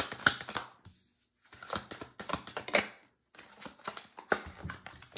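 Stiff round fortune cards being shuffled and handled, a rapid patter of card clicks and riffles in three bursts with short pauses between them.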